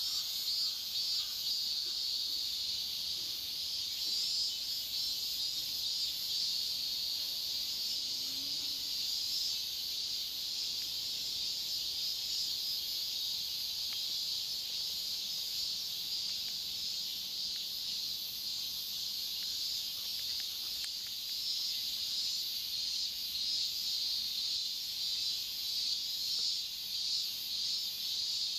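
Crickets chirping in a steady, high-pitched chorus of rapidly pulsing trills.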